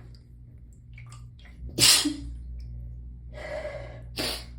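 A person sneezes hard once, about two seconds in. This is followed by a drawn-out gasping breath and a second, quieter sneeze near the end.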